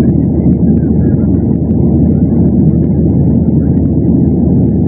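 Steady cabin noise inside a Boeing 737 airliner during descent: the dull rumble of the jet engines and rushing air, with a constant low hum underneath.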